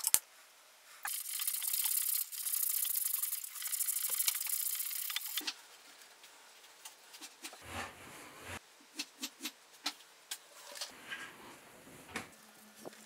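Pull-tab lid of a metal fish tin being peeled back with a rasping, scraping tear, in three stretches over several seconds, followed by scattered small clicks and taps of the tin being handled.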